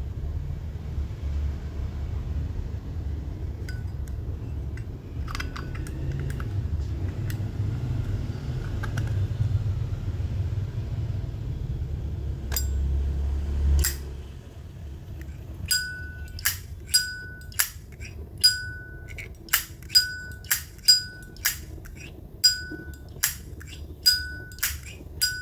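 A Zippo lighter's lid is flicked open and snapped shut over and over in the second half. Each stroke is a sharp metallic click with a short ringing ping, coming a little more than once a second. Before that there is a low rumble with a few faint handling clicks.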